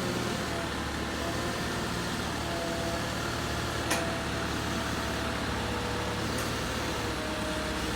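A heavy vehicle's engine running steadily, with a sharp click about four seconds in and a fainter one a couple of seconds later.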